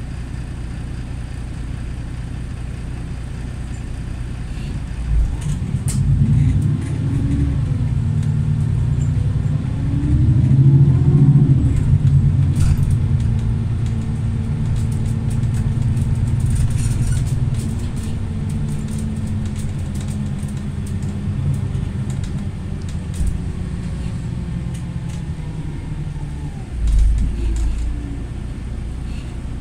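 City bus heard from inside the cabin: a low running hum while it stands, then about five seconds in it pulls away with whines that rise in pitch as it accelerates, runs on steadily and gradually quietens. A short low thump comes near the end.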